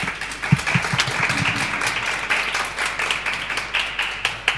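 An audience of schoolchildren applauding a correct answer, a dense patter of many hands clapping that dies away near the end.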